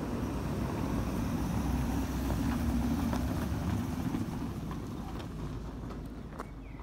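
A passing vehicle's low rumble that swells about halfway through and then fades away, with scattered sharp clicks on top.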